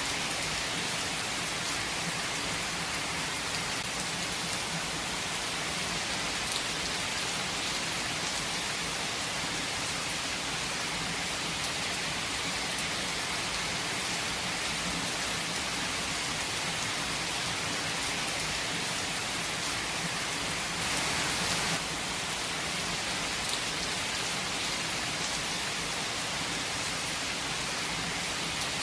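Steady rain falling, an even hiss of many drops, briefly a little heavier about three-quarters of the way through.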